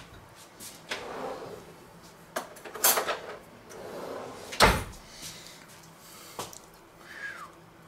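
Kitchen handling sounds: a few scattered knocks and clatters, like cupboards, drawers and dishes being handled, with one sharper knock a little past halfway and a short falling squeak near the end.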